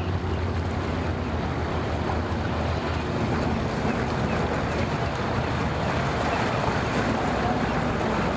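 Boat motor running low and steady, fading after about two seconds, over a constant rush of wind and water.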